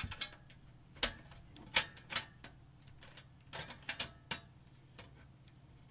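Irregular sharp metallic clicks and taps, about ten of them, as a thin metal I/O shield is handled and pressed into a mini-ITX PC case. A faint steady low hum runs underneath.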